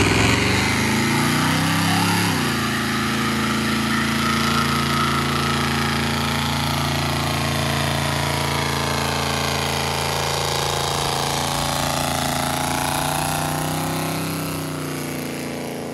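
Chevrolet Z71 pickup's V8 revved hard during a burnout. The pitch rises over the first couple of seconds and then holds steady at high revs, over the hiss and squeal of the spinning, smoking rear tyre. The revs ease off near the end.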